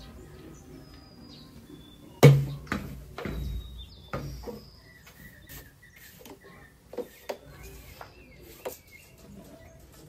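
A sharp knock about two seconds in, then scattered lighter knocks and clicks from cleaning tools being handled. Birds chirp faintly in the background.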